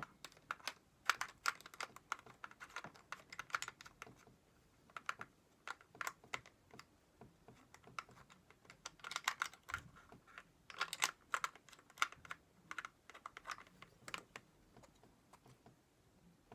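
Irregular clicks, taps and rattles of hands working the plastic body of a Super 8 cine camera, fitting the AA battery pack into the handle and screwing it on.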